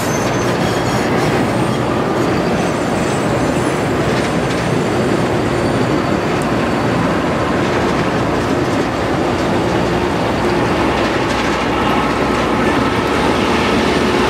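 Loram rail grinder train rolling past close by: a loud, steady noise of steel wheels on rail and the train's machinery.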